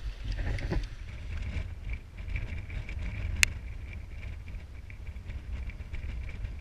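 Wind buffeting the microphone in a ragged low rumble, with one sharp click a little past halfway.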